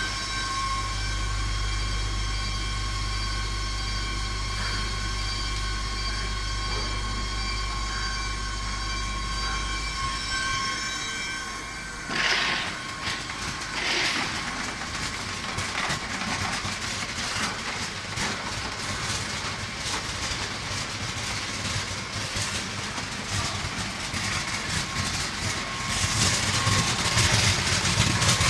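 Pepper colour sorting machine running: a steady low hum with high whining tones for about the first ten seconds, then a busier rattling noise with many quick clicks, louder near the end.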